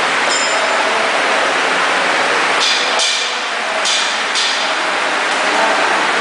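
Small collet lathe running in a machine shop: a steady mechanical din, with three short, high hissing bursts in the middle.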